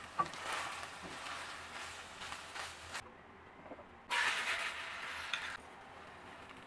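Corned beef with onions and garlic sizzling as it is stirred in a frying pan, with one sharp clink near the start. After a short quieter spell, a louder burst of sizzling from the oiled rectangular omelette pan lasts about a second and a half, then settles to a faint sizzle.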